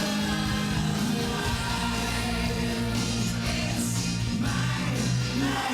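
Dance performance backing music with sung or choral vocals.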